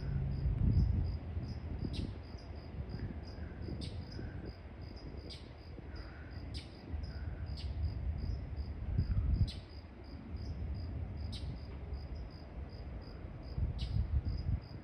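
Crickets chirping: a steady train of short high chirps with a sharper chirp about every one and a half to two seconds, over an uneven low rumble.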